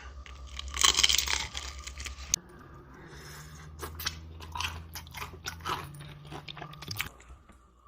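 Close-miked crunching of crispy fried chicken being bitten and chewed: a loud crunchy bite about a second in, then a run of smaller crackling crunches as it is chewed.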